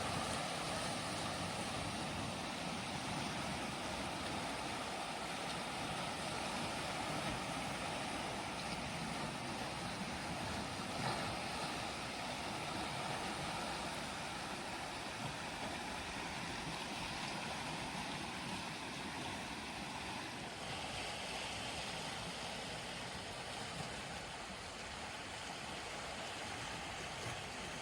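Steady rushing of wind and ocean surf, with wind rumbling on the microphone.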